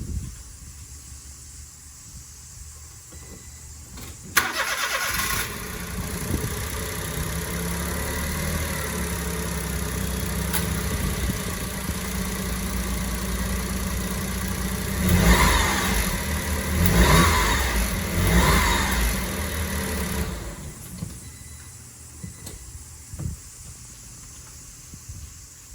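Honda Vamos Hobio's three-cylinder 660 cc engine cranked by the starter and catching about four seconds in, then idling steadily, revved briefly three times, and switched off about twenty seconds in. This is a test start after fitting new spark plugs.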